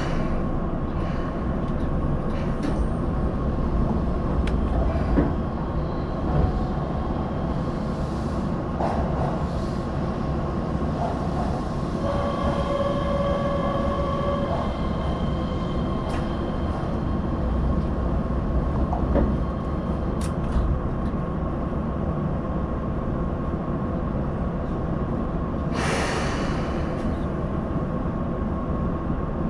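Keihan limited express electric train running on the rails, heard from inside the car: a steady rumble, with a high whine for a few seconds near the middle and a brief hiss near the end.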